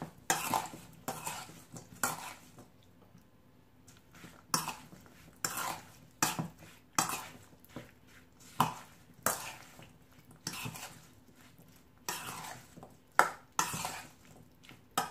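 Metal spoon stirring chopped cherry tomatoes in a stainless steel bowl: irregular clinks and scrapes of metal on metal, with a short pause about three seconds in.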